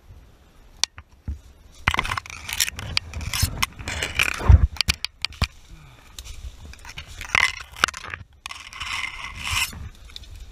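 Branches and leaves scraping and rustling close to the microphone as someone pushes through dense scrub, in two spells, one about two seconds in and one near the end, with sharp twig snaps in between.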